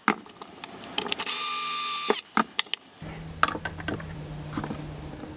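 Cordless drill running for about a second, drilling out holes in a plastic light-panel housing, with handling clicks before and after. From about three seconds in, light clicks and taps of a small LED light being set onto the plastic panel.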